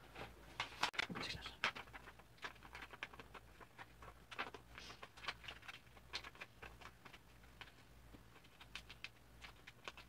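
A sheet of paper being folded into a paper airplane: faint, irregular crinkles and creasing taps.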